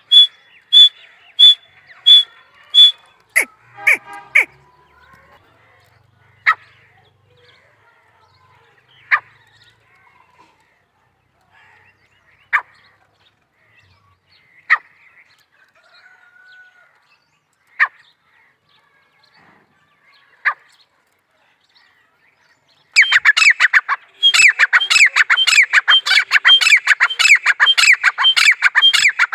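Grey francolin calling. A run of sharp, evenly spaced notes opens the clip, then single sharp calls come every two or three seconds. From about 23 seconds in, a loud, fast, unbroken series of calls runs to the end.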